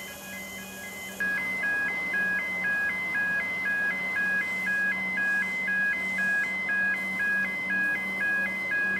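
Railway level-crossing warning alarm sounding: an electronic two-tone signal alternating high and low about twice a second, warning of an approaching train. It gets louder about a second in.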